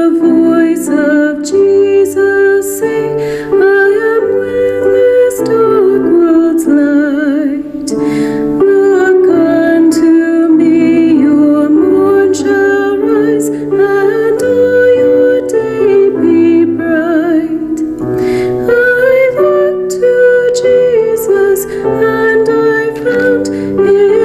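Slow hymn sung by a woman's voice with vibrato, held notes changing about once a second, over a keyboard accompaniment with a moving bass line.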